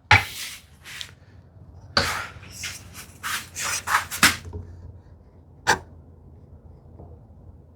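A string of irregular short knocks and scrapes of wooden parts and tools being handled on a workbench, the loudest about two seconds and four seconds in.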